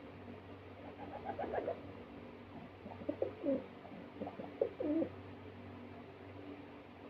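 A pigeon cooing in three short bouts, over a steady low hum.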